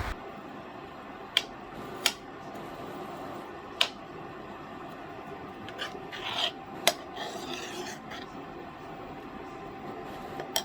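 A spoon clicking and scraping against a cooking pot of curry as it is stirred, with a few sharp clinks spaced a second or more apart.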